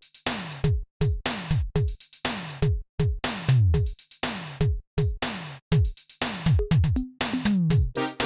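Electronic music with a drum-machine beat: deep kick drums that drop in pitch, about two a second, under a bright top, with several abrupt momentary dropouts.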